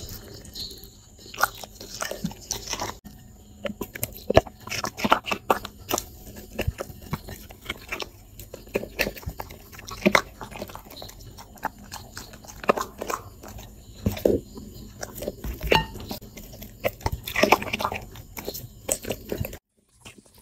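A dog eating close to the microphone: irregular crisp bites and crunches with chewing in between. The sound cuts out abruptly for a moment near the end.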